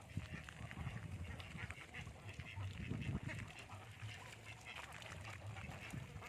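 A large flock of Indian runner ducks quacking, many short calls overlapping, over a low rumble.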